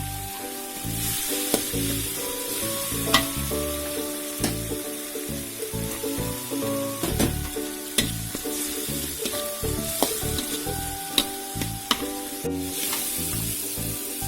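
Food sizzling in a frying pan while it is stirred, with sharp clinks of the spatula against the pan every second or two. Background music with a steady beat plays over it.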